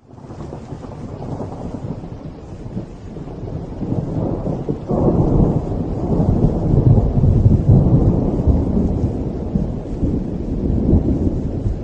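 Thunder rumbling. A sudden louder clap comes about five seconds in, and the deep rolling rumble continues after it.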